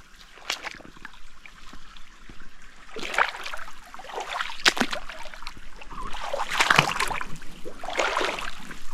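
Creek water splashing and sloshing in irregular bursts as someone wades into a shallow mountain stream, getting louder through the clip.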